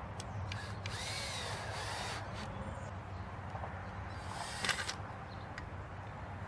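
Cordless drill driving screws into the wooden braces of a fence post: the motor whines up and down in a run of just over a second about a second in, then a shorter run about four and a half seconds in.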